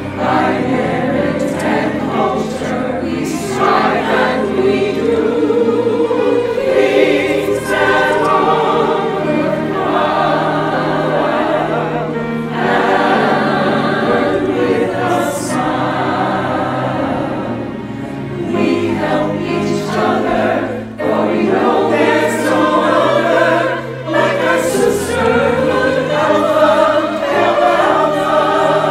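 A women's choir singing a hymn, many voices together.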